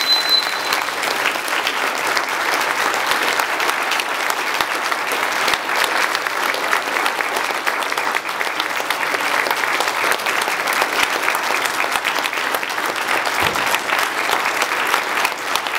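A church congregation applauding: many hands clapping in a dense, steady round that holds at an even level throughout.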